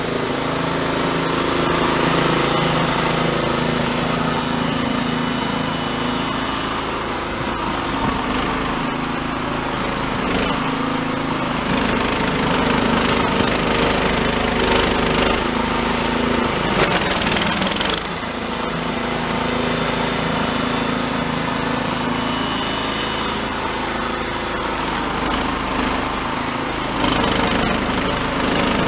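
Toro Snowmaster 724 QXE single-stage snowblower running under load, its four-stroke engine holding a steady note while the auger chews through deep, heavy, refrozen snow and throws it out the chute. The engine note dips briefly about two-thirds of the way through, then picks up again.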